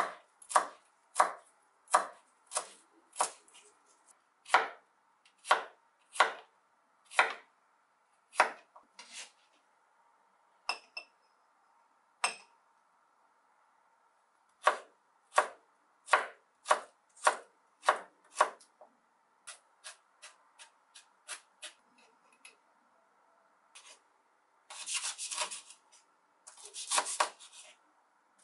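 Chef's knife chopping cilantro, garlic and red chilis on a wooden cutting board: sharp single knocks about one and a half a second, a sparse stretch in the middle, then a quicker run of chops. Near the end come a few longer rasping bursts.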